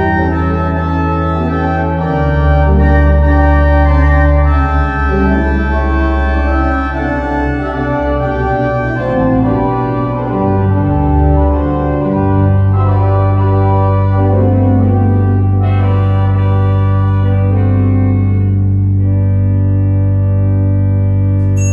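Pipe organ playing full sustained chords over deep pedal bass notes; the harmony moves for about twelve seconds, then settles on one long held chord.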